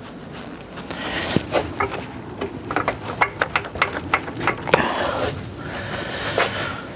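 Irregular clicks and knocks of car parts being handled and moved around the stripped front end of a car, thickest through the middle of the stretch.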